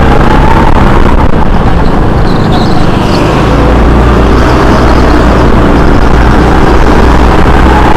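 Go-kart engine running loud at racing speed, its note slowly climbing and falling.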